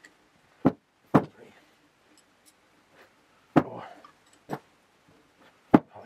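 Five sharp, unevenly spaced metallic clicks and knocks of hand tools working on the housing of a Volvo Penta S120 saildrive during disassembly.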